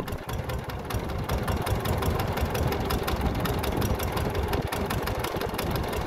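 A boat's small single-cylinder diesel engine idling, a steady, rapid, even knocking.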